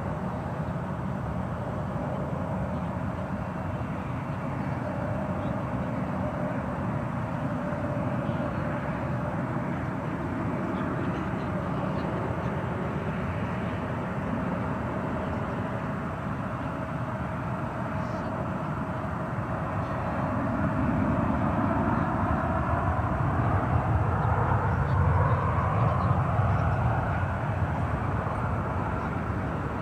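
Jet airliner, the Airbus A350, heard as a steady engine rumble that swells about two-thirds of the way in and is loudest near the end, with a whine that bends in pitch as the aircraft goes by.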